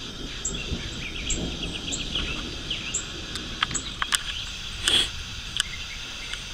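Outdoor background of repeated short, high chirping, with a few sharp clicks around four seconds in and a brief louder rustle about five seconds in.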